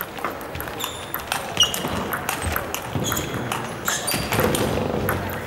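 A table tennis rally: the ball clicking back and forth off the bats and the table, with brief squeaks of shoes on the hall floor.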